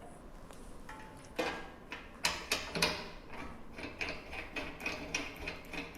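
Irregular metal clicks and knocks as the stainless steel head of an electric meat grinder is handled and fitted onto the machine, starting about a second and a half in.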